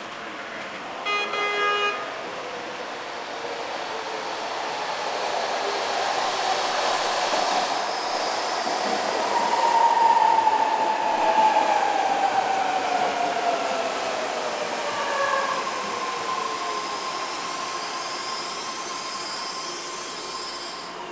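A BART train pulling into the station. A short horn blast sounds about a second in. The wheel and motor noise then swells to its loudest about halfway as the cars run past, and a whine falls steadily in pitch as the train brakes to a stop, leaving a steady high tone near the end.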